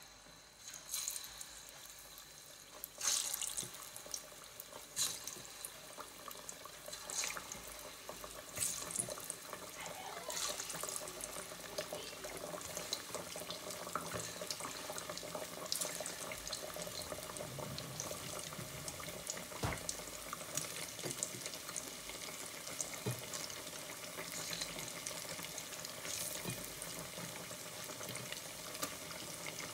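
Slices of ripe plantain frying in hot oil: a steady crackling sizzle, with sharp bursts as fresh pieces are dropped in, every second or two in the first half. The sizzle swells over the first few seconds as the pot fills.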